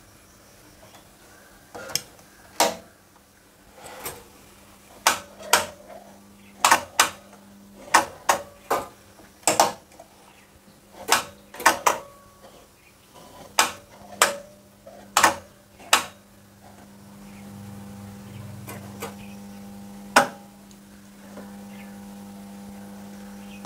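Relays in a 5 kVA automatic voltage stabilizer clicking one after another as the input voltage is raised and the unit switches between transformer taps: about twenty sharp clicks over the first sixteen seconds. A steady transformer hum then grows louder, and one last loud click comes about twenty seconds in, as the output cuts off near 300 V.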